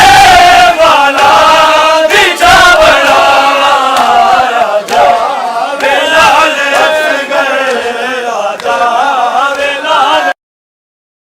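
A group of men chanting a nauha, a Muharram lament, together in a melodic unison, with a few sharp knocks in it. The sound cuts out abruptly about a second before the end.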